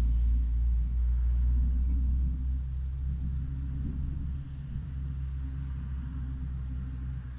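Distant rolling thunder: a deep, low rumble that is loudest at the start and slowly dies down over the next few seconds.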